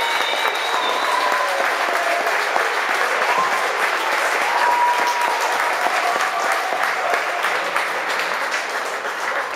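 Crowd applauding: dense, steady clapping with a few voices mixed in, easing off slightly near the end.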